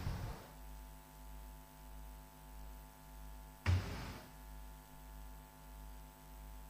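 Near silence with a faint, steady electrical hum. A short burst of noise comes about three and a half seconds in.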